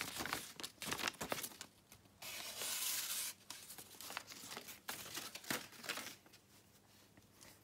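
Paper being sliced by a sharp Kai Seki Magoroku Moegi kitchen knife, its blade testing its edge: crackling and rustling of paper, with one longer steady slice about two seconds in, then scattered rustles that die away about six seconds in.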